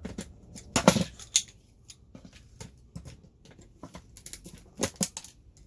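Scattered clicks and knocks of small plastic and metal parts of a radio being handled and pried apart. The loudest come about a second in and again near the end.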